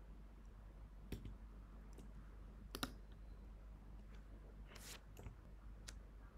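A few faint, scattered clicks from a computer mouse and keyboard being worked, over quiet room tone.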